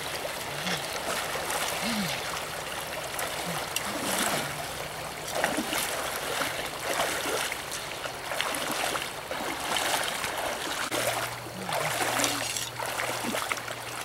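Shallow stream rushing steadily, with irregular splashes of legs wading through the water.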